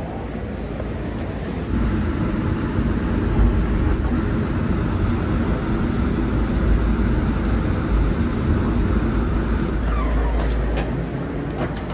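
Inside an automated airport people-mover car, the cable-hauled train runs along its guideway with a steady low rumble. The rumble picks up about two seconds in and eases near the end, with a brief falling whine as the train slows.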